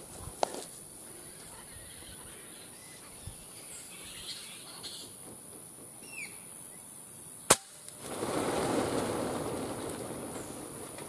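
A single sharp air-rifle shot about seven and a half seconds in, followed by a few seconds of rustling in the pine branches where the flying fox was hanging.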